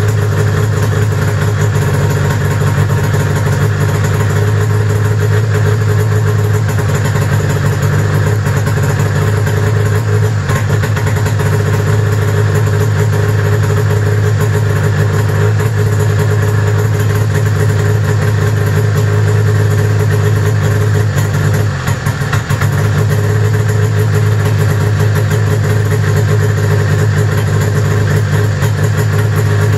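1995 Arctic Cat ZR 700 snowmobile's two-stroke engine idling steadily, with one brief dip in level about three-quarters of the way through.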